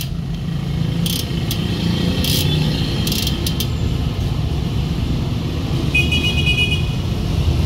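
Steady low rumble of road traffic, with a few short clicks in the first half and a brief high tone about six seconds in.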